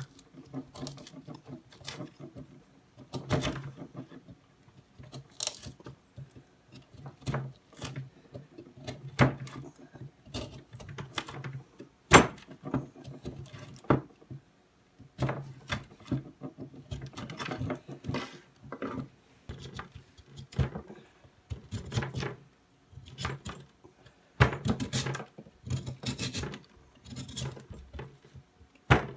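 Knife carving a hardwood log by hand: short, irregular scraping cuts as the blade shaves off chips and curls, with occasional sharper clicks, the loudest about twelve seconds in.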